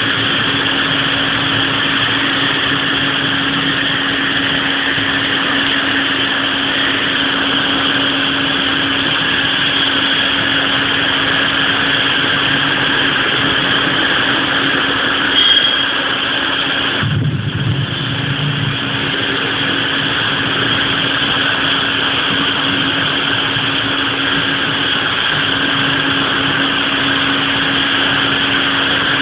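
Heavy rain pouring down steadily, a dense unbroken hiss over a steady low hum, with one brief sharp click about halfway through.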